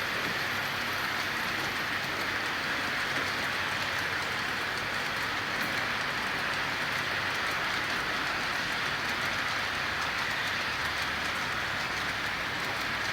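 Freight train running on the rails: a steady, even noise of wheels and cars that holds at the same level throughout.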